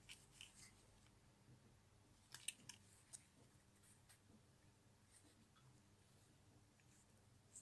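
Near silence with a few faint clicks and rustles from hands handling a doll, the loudest cluster about two and a half seconds in.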